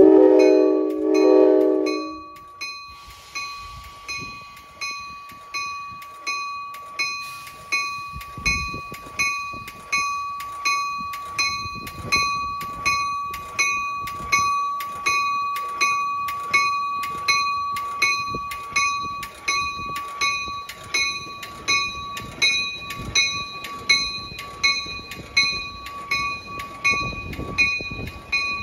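Passenger train locomotive horn sounding two short blasts, then the locomotive bell ringing steadily, a little more than once a second, as the train starts to pull out. Near the end the low rumble of the moving train builds under the bell.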